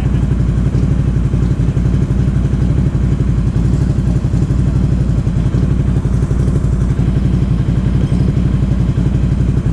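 Can-Am Outlander XMR 1000 ATV's V-twin engine running steadily at low revs through a Big Gun aftermarket exhaust, with an even, rapid pulse and no revving.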